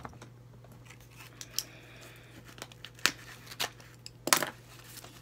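Shiny gift wrap and tape being picked at and torn open by hand: scattered crinkles and sharp snaps, the loudest cluster about four seconds in, over a low steady hum.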